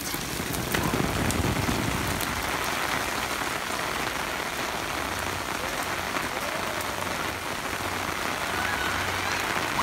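Heavy rain falling steadily, pattering on an umbrella held over the recording phone.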